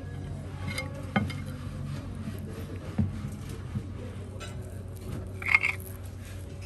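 Cutlery and dishes clinking and knocking during a meal: a few scattered knocks, the sharpest clink about five and a half seconds in, over a steady low background hum.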